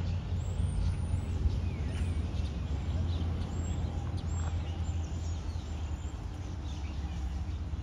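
Outdoor ambience: a steady low rumble with faint, scattered chirps of small birds.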